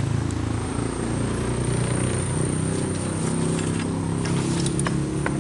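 Steady low engine hum, as of a motor vehicle running close by, with a few sharp clicks near the end as a hard-shell drone case is handled.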